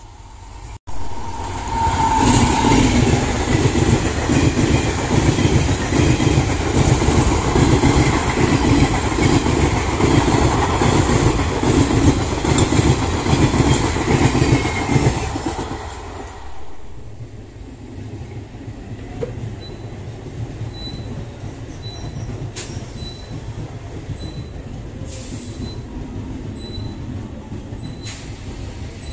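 Express train coaches passing close at speed, their wheels rumbling and clattering rhythmically over the rails, loud for about fifteen seconds. The sound then drops suddenly to the quieter, steadier rolling of an electric suburban local train passing on a farther track.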